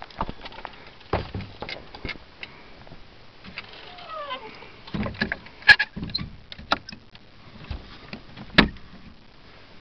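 Knocks, clatter and shuffling of someone moving about inside a small wooden outhouse. A short falling squeak about four seconds in fits the door hinge. The loudest knocks come just before the middle and about a second before the end.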